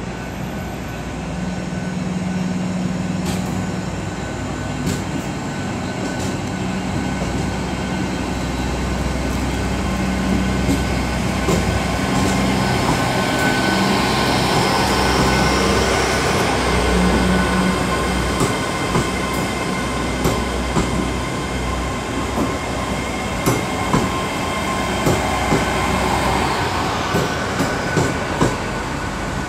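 GWR Class 800 bi-mode train moving slowly under diesel power, its underfloor engines running with a steady hum. A whine rises and peaks about halfway through. Sharp wheel clicks over rail joints come near the end.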